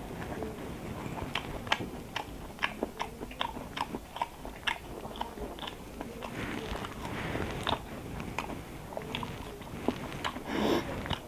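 A person chewing and biting food close to the microphone, with many sharp clicks packed into the first half and fewer, softer chews later on.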